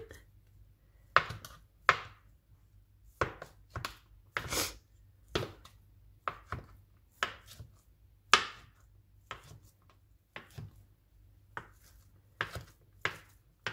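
Kitchen knife dicing Spam on a chopping board: separate, irregular knocks of the blade on the board, about one or two a second.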